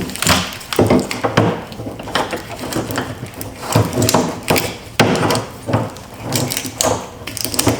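Loose motorcycle parts being rummaged and pulled out by hand: irregular knocks, clunks and rattles, a dozen or so uneven hits.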